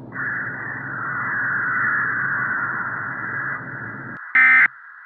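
Band-limited static hiss over a low hum, swelling and then fading. A little after four seconds it cuts off and one short, loud, harsh buzzing burst sounds: an Emergency Alert System data burst, the kind that marks the end of an alert.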